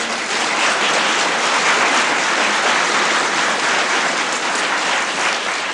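Studio audience giving a performer entrance applause: steady clapping of many hands.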